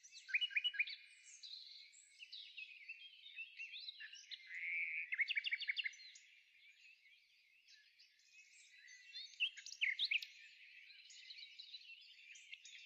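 Small birds chirping and twittering in quick trills and short calls, with a brief lull a little past the middle.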